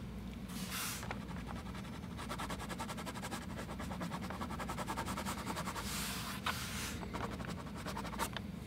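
China marker scribbling on drawing paper in quick, short back-and-forth strokes, about eight a second through the middle, over a low steady hum.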